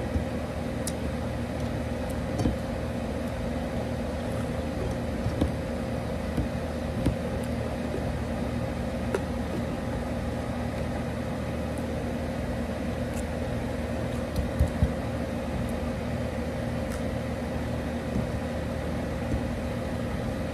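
Steady hum of a running air conditioner, even and unchanging, with a few soft clicks and taps from eating at the plate, a small cluster of them about two-thirds of the way through.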